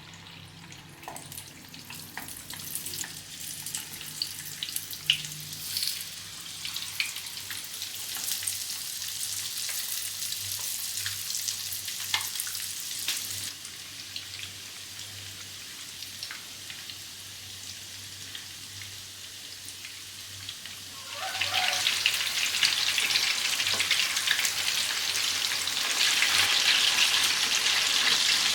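Chicken frying in hot oil: a steady high sizzle with scattered small crackles and pops. It becomes much louder about three-quarters of the way through and louder again near the end.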